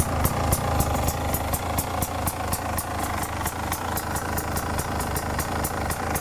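2018 Beta RR 300's two-stroke single-cylinder engine idling steadily, with a regular light ticking about five times a second over the running.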